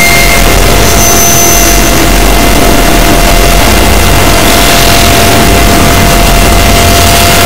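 A constant, very loud wall of distorted noise from many audio tracks stacked on top of one another, with a steady mid-pitched tone running through it.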